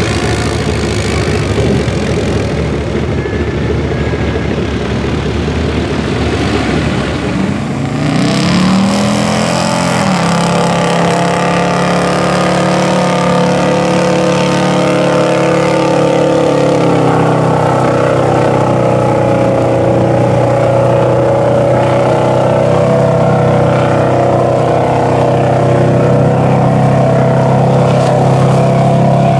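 A four-wheeler's engine runs rough as it churns through mud. About eight seconds in, a Chevy 4x4 pickup's engine revs up and holds at high revs, a steady loud drone, as the truck pushes through a deep mud pit.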